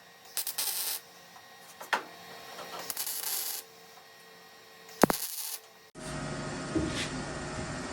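Arc welder laying short tack welds on a car's sheet-metal quarter panel: three brief bursts of crackling, each under a second, with pauses between. About six seconds in the sound switches abruptly to a steady low background hum.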